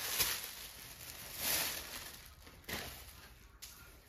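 Rustling of a pink cotton mekhela sador being unfolded and shaken out by hand, in a few soft swishes that fade toward the end.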